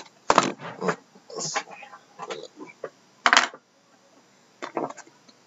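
Sealed cardboard boxes of trading cards being handled and set down on a wooden desk: a few sharp clacks and knocks, the loudest a little past three seconds in.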